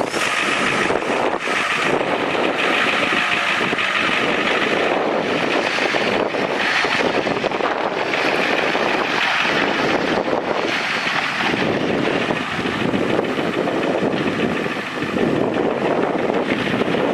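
1990 Ford F350's 7.3-litre V8 diesel engine running steadily after start-up.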